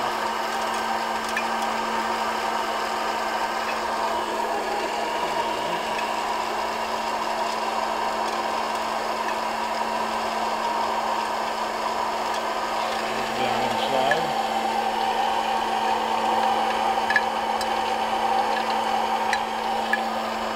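Hot air popcorn popper running steadily, its fan motor humming as it blows green coffee beans around the roasting chamber, with a few light ticks near the end. The beans are early in the roast, still green and well before first crack.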